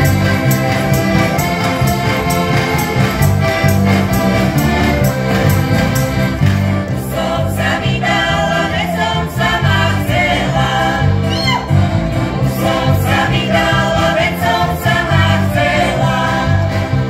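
Slovak folk band playing heligónkas (diatonic button accordions) and accordions over a steady bass guitar line, with the group singing a Kysuce folk song in chorus, the voices strongest from about seven seconds in.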